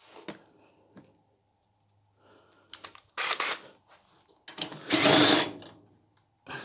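Cordless drill running in two short bursts, undoing screws from a clothes dryer's sheet-metal cabinet. The second burst is longer and louder, lasting about a second.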